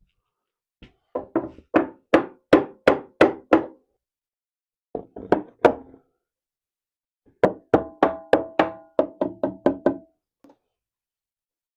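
Hammer blows on a wooden 2x6 frame: three runs of sharp knocks at about three a second, the last and longest run quicker, with a ringing note under its blows.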